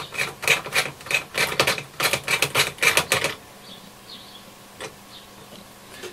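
Ratchet driver with a 12 mm long-reach socket clicking quickly and rhythmically, about four or five clicks a second, as it turns the band switch's retaining nut. The clicking stops a little over three seconds in, leaving a few faint clicks.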